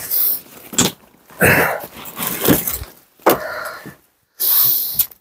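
A man sitting down on a log bench: several short bursts of clothing rustle and breathing, separated by brief pauses.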